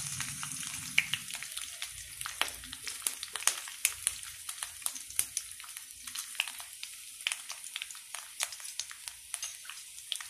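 Hot oil sizzling in an iron kadai with frequent sharp crackles and pops: a South Indian tempering of mustard seeds, urad dal and green chillies frying, with broken dried red chillies being dropped in.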